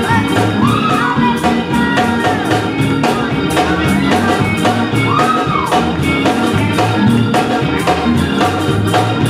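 Live gospel praise music from a church band: drums keep a steady beat under organ and singing.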